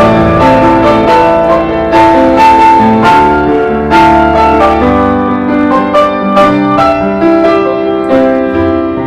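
Background piano music: a melody of held notes over low bass notes.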